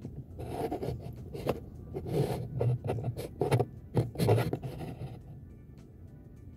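Irregular scraping and rubbing handling noises with a few short knocks, from hands and tools working at a soldering bench, settling down after about five seconds.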